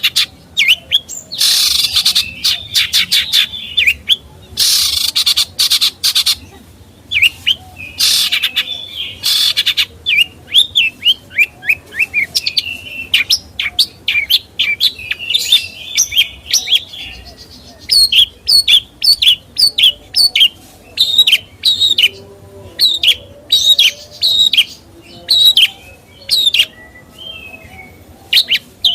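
A caged songbird singing loudly and continuously: harsh, buzzy rattling phrases in the first several seconds, then a long run of quick, sharp chirps and whistled notes.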